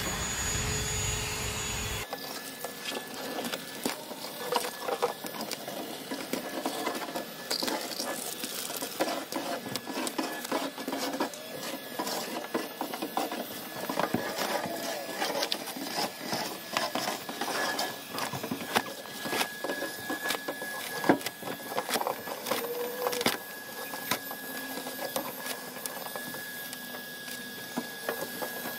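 Foam floor padding being torn and scraped off a van's bare metal floor by hand: irregular scratching, tearing and scraping with scattered light knocks, and one sharper knock about two-thirds of the way through.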